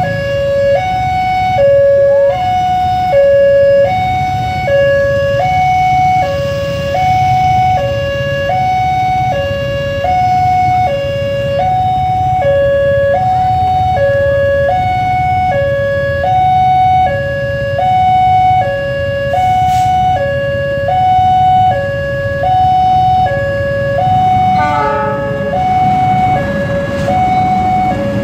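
Railroad crossing warning alarm sounding its two-tone signal, a lower and a higher tone alternating about every three-quarters of a second, over the low rumble of idling motorcycle engines waiting at the barrier. Near the end a diesel locomotive pulls into the crossing.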